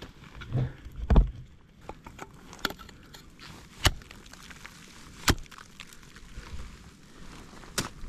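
Ice axes and crampons striking the ice of a barely frozen waterfall in about six sharp, irregular knocks. The loudest comes about a second in.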